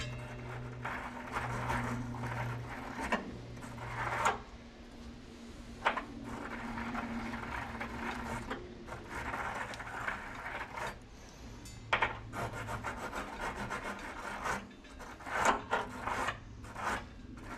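Rubbing and scraping of a hand working at the threaded opening in a gas water heater tank, where the gas control valve mounts, with a few sharp knocks, over a low steady hum.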